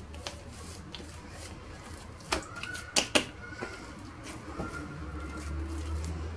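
Soft, oiled bread dough being pinched off and rounded into balls by hand on a granite counter: quiet sticky handling noise, with three sharp slaps a little past two and three seconds in.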